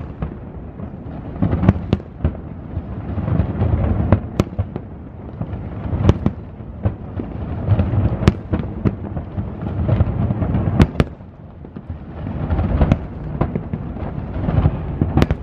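Aerial fireworks bursting: a continuous deep rumble of booms broken by sharp, irregular cracks, roughly one every second or so.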